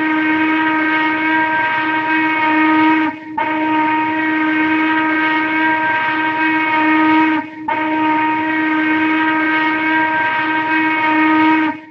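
Train whistle blowing three long, steady blasts of about four seconds each, with short breaks between them, holding one pitch throughout.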